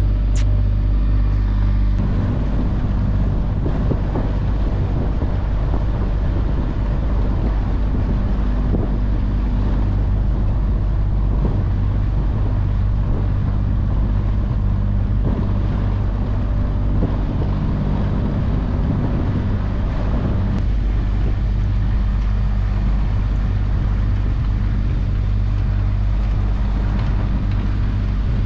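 A small sailboat's engine running steadily under way, a low even drone, with wind buffeting the microphone.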